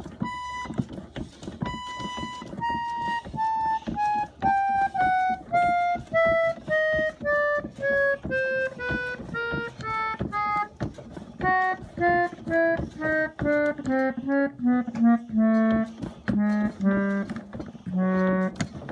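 Estey field organ, a foot-pumped reed organ, sounding single held notes one key at a time, about two a second, stepping down the keyboard from high to low.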